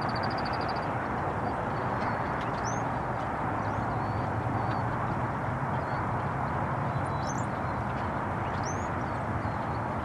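Steady rushing background noise with faint calls from perched songbirds above it: a rapid high trill right at the start, then a few thin, rising whistles about 3, 7 and 9 seconds in.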